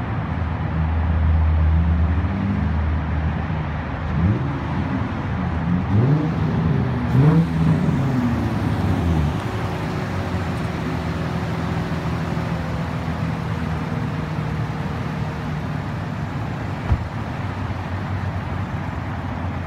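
2005 Nissan 350Z's 3.5-litre V6 through a straight-piped, muffler-deleted exhaust: running loud and steady, then several quick revs rising and falling in pitch, settling about halfway through into a steadier, quieter drone. One sharp snap near the end.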